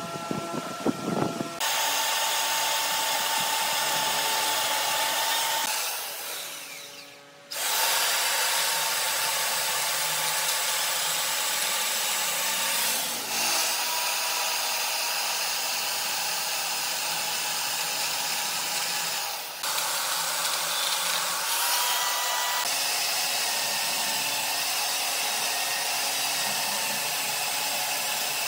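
A power tool working wood, making a steady, hissing grind. It fades out briefly about six to seven seconds in, then carries on with small breaks near thirteen and twenty seconds in. For the first second or so a different, lower rumbling sound is heard.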